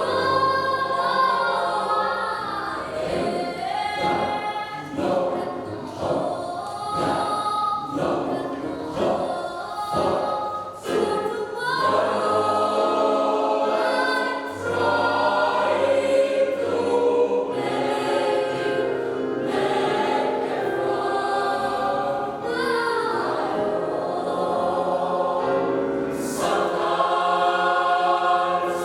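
Church youth choir singing a sacred choral piece, phrase after phrase without a break.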